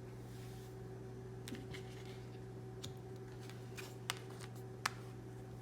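Large tarot cards handled by hand: a few faint clicks and taps as the cards are moved and set down, the two sharpest about four and five seconds in, over a steady low hum.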